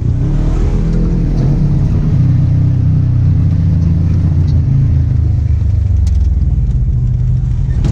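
Polaris RZR side-by-side's engine running at low trail speed, heard from the open cab: a steady low drone whose pitch rises and falls a little with the throttle about a second in.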